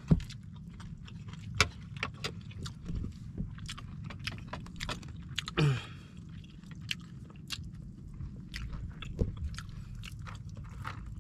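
A person chewing and eating food by hand close to the microphone: irregular wet clicks and lip smacks. One short voiced sound with a falling pitch comes about halfway through.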